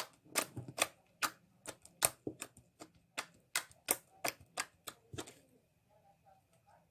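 Slime being squeezed and stretched in the hands, giving a rapid series of sharp clicks and pops, about three or four a second, that stop about five and a half seconds in.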